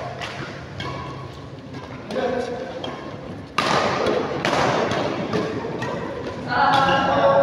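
Badminton rally: rackets hitting the shuttlecock in sharp, scattered taps, with thuds of players' feet on the court. A sudden loud rush of noise comes about halfway through.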